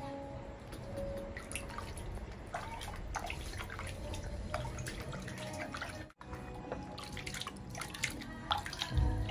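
Water splashing and dripping in a plastic basin as a hand scoops and pours water over a baby monkey, in many small irregular splashes. The sound drops out briefly about six seconds in.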